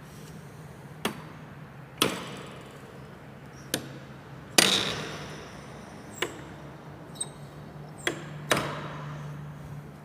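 About eight sharp knocks and bangs at irregular intervals, the loudest about halfway through, several ringing on with an echo, over a steady low hum.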